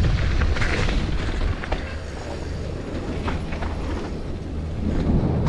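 Wind buffeting an action camera's microphone as a downhill mountain bike rolls fast over a dirt trail, with tyre rumble and occasional short knocks and rattles from the bike, easing a little about two seconds in.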